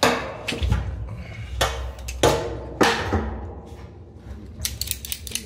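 A handful of sharp metallic knocks and clanks from hand tools striking a stainless steel water tank, with a quick run of clicks near the end.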